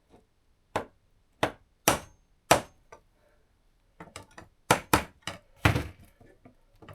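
Sharp taps on a Phillips screwdriver used as a punch to drive the pin out of a knife handle. Several single taps about half a second apart, a pause, then a quicker run of taps.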